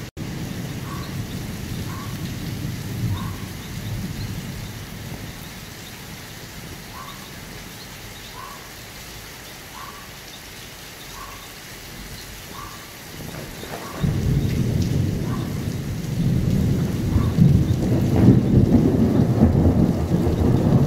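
Steady rain with thunder rumbling low; about two thirds of the way in a loud clap of thunder breaks suddenly and rolls on. A faint short chirp repeats roughly once a second under the rain.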